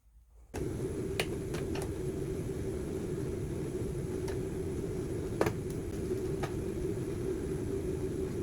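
A steady electric motor hum, like a power tool running, that starts abruptly about half a second in and holds even throughout, with a faint high whine and a few sharp clicks on top.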